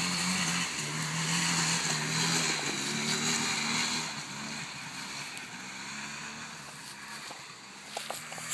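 Polaris quad (ATV) engine running while riding through grass. The engine is steady and strongest for the first few seconds, then eases off and gets quieter. A few sharp clicks come near the end.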